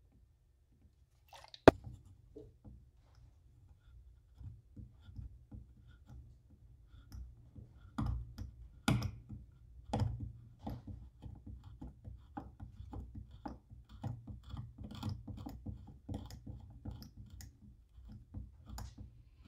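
Small irregular clicks, taps and scrapes of a hobby knife working against a hand-held wooden lure while masking tape is pressed around its lip. One sharp click about 2 s in is the loudest; from about 4 s on the small taps come more often.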